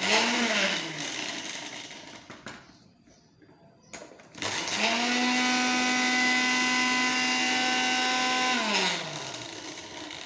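Electric spice grinder run in two short pulses, grinding dried fenugreek leaves (kasuri methi) lightly. Its motor whine winds down about a second in. After a pause and a click, it runs steadily for about four seconds, then winds down near the end.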